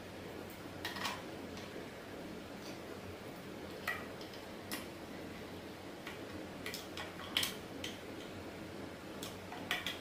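Small irregular clicks and taps of a screwdriver working screws in the plastic housing of a key cutting machine, over a low steady background hiss. The sharpest click comes about seven seconds in.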